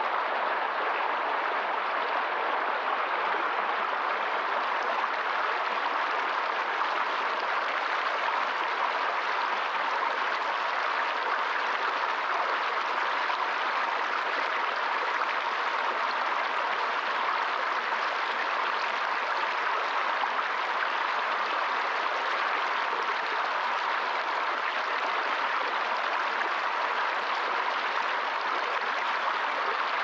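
Shallow mountain stream rushing and splashing over rocks in a small riffle close by, a steady even hiss.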